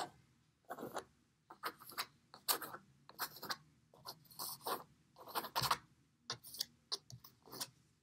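Plastic painter's knife scraping and spreading thick white gesso across a canvas in a series of short, uneven strokes, about a dozen of them.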